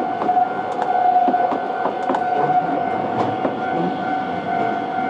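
Japanese level-crossing warning alarm ringing with a steady tone, while a city tram's wheels clatter and click irregularly over the rails at the crossing.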